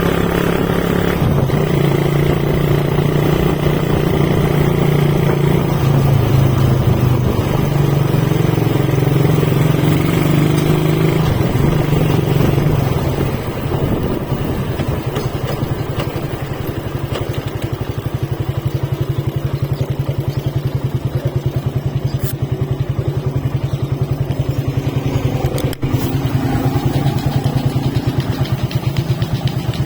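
Motorcycle engine running, its pitch rising and falling for the first half, then settling into a steadier, slightly quieter even pulse.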